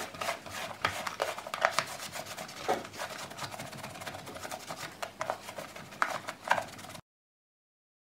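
A cloth rubbing and wiping over the plastic underside of a Shark cordless vacuum's floor head, in irregular scuffs with small knocks as the head is handled. The sound cuts off abruptly about a second before the end.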